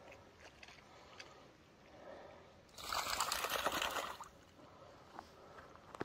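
Water splashing and sloshing as a Great Pyrenees wades into a shallow creek, loud for about a second and a half in the middle, with faint light ticks of movement around it.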